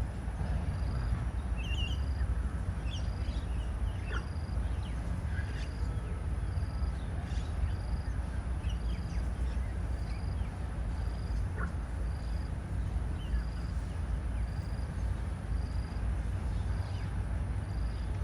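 Outdoor park ambience with a steady low rumble. A short high pip repeats about once a second, with scattered brief bird chirps over it.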